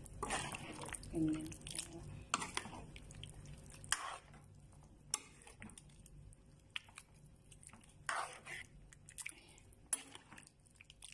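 Metal spoon stirring a thick chicken stew in a pan, with irregular wet scrapes and a few sharp clinks of the spoon against the pan.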